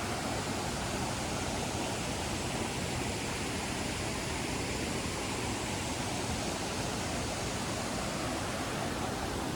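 Steady rushing of cascading water, an even, unbroken wash of noise from a jungle waterfall stream.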